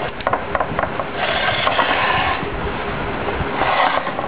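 A small motor-driven pulley wheel running with a steady whir and mechanical rattling. A quick run of clicks comes in the first second, and louder rattling stretches follow about a second in and again near the end.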